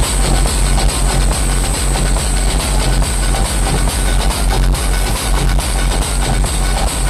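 Dance music played loud through a large DJ sound system, with a heavy bass beat pulsing about twice a second under a dense, noisy wash of sound.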